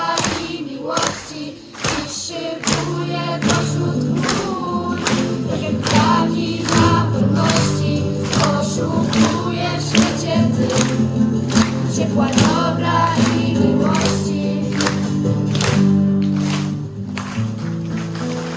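A group singing a song in chorus over a steady rhythmic accompaniment of regular strokes about twice a second and held low notes. The music eases off near the end as the song closes.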